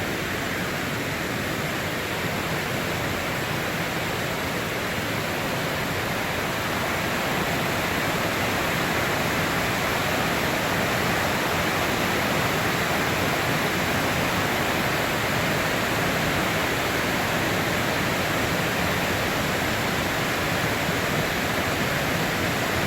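Waterfall pouring into its plunge pool at close range: a steady, full rushing noise that grows a little louder about a third of the way in.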